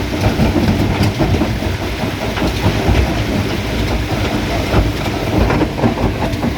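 Stone crusher running and crushing rock: a continuous loud clatter of stones rattling and knocking through the machine, many small impacts over a steady low rumble.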